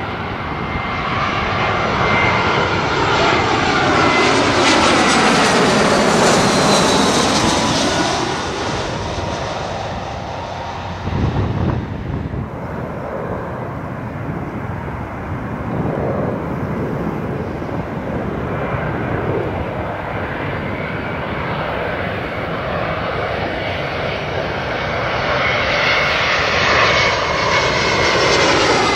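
Jet airliners' turbofan engines on landing approach passing low overhead: a whining rumble that swells and fades, its pitch sweeping as the first jet goes by. The engine sound dies down to a distant rumble, then a second airliner grows louder near the end, its fan whine rising over the roar.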